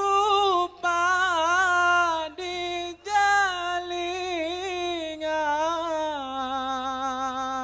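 Solo male lead singer of a dikir barat troupe singing an unaccompanied, heavily ornamented melismatic line through a microphone, in a few phrases with short breath pauses. He settles onto a long held note in the last couple of seconds.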